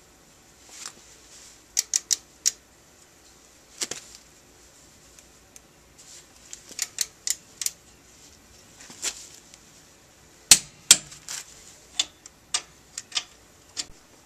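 Ratcheting hand wrench clicking as bolts are tightened: sharp metallic clicks come in short irregular groups, with the two loudest about two-thirds of the way through.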